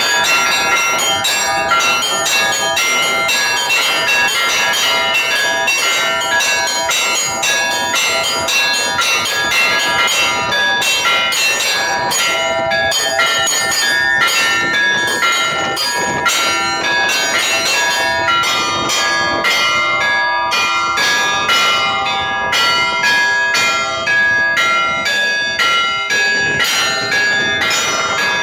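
Several Russian Orthodox church bells rung together in a fast, continuous peal, the strokes following one another rapidly.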